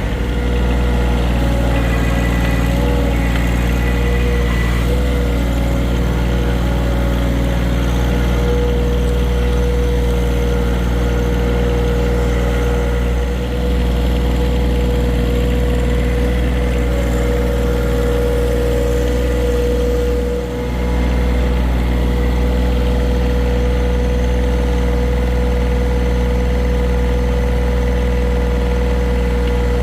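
John Deere tractor engine running steadily, with a steady whining tone over it. Its sound drops briefly twice, about halfway through and again some seconds later.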